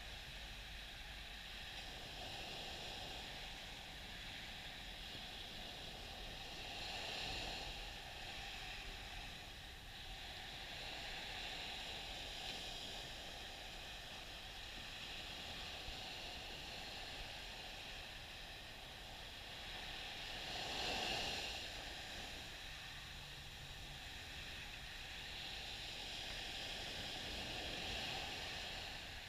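Small waves breaking and washing up a sandy beach: a steady hiss that swells with each wave every several seconds, the biggest wash about two-thirds of the way through.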